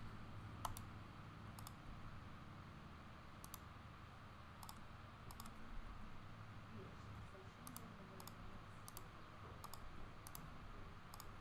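Quiet, sparse clicks of a computer mouse and keyboard keys, about a dozen spread irregularly, over a low steady hum of room tone.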